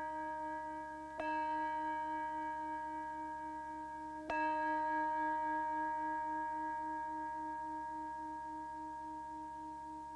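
A struck bell rings on with a long tone made of several steady pitches, the lowest wobbling slowly. It is struck again about a second in and about four seconds in, each strike sharp and then fading slowly.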